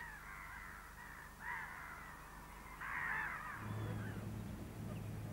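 A flock of birds calling: harsh, overlapping calls, loudest about a second and a half and three seconds in. A low steady hum comes in after about three and a half seconds.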